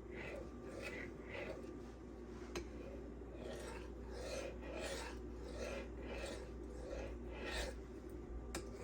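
An M390 steel knife blade drawn in light, repeated strokes across a fine diamond-resin sharpening stone, about two scrapes a second. These are cleanup passes to minimize the burr at the end of sharpening.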